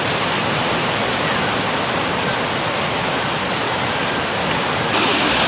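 Steady, even rush of flood-swollen water. About five seconds in it jumps to a louder, hissier rush, the torrent of muddy floodwater.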